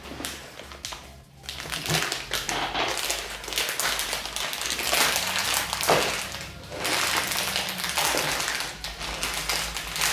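Plastic Nimm2 Soft sweet bag crinkling as it is handled and pulled open by hand: an irregular stream of sharp crackles and rustles.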